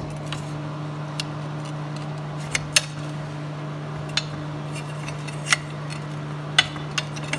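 Adjustable wrench clinking against a seized, heated bolt head on the steel auger knife as it is worked to break loose: sharp metallic clinks every second or so. A steady low machine hum runs underneath.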